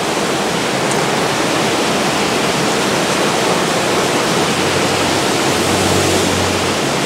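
Heavy tropical downpour: rain pouring steadily onto the road, a loud, even hiss. In the last few seconds a motor scooter passes on the wet road, its engine a low hum under the rain.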